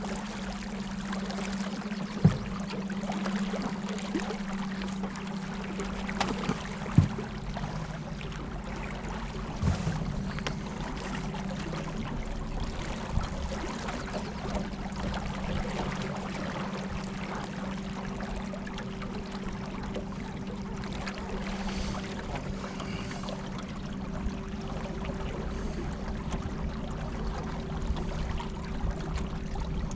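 Electric trolling motors running with a steady low hum, over the wash of water against the boat. A few sharp knocks about two, seven and ten seconds in.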